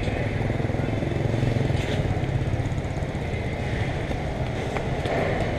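Steady outdoor city background noise, mainly a low rumble of motorbike and road traffic.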